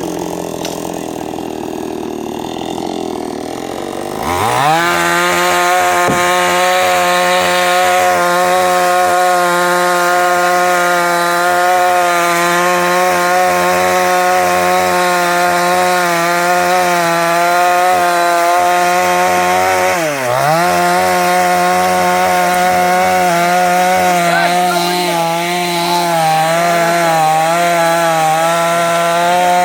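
Two-stroke chainsaw sawing through the trunk of an old ber tree. About four seconds in it revs up from a lower, rougher running to a steady high-pitched whine at full throttle. It dips briefly twice, about twenty seconds in and again near the end, then climbs straight back.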